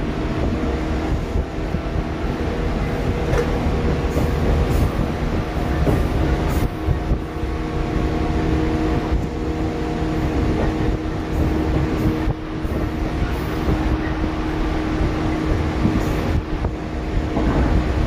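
Shinano Railway 115-series electric train motor car running at steady speed, heard through an open window: a steady hum from the traction motors and gears over the rumble of wheels on rail.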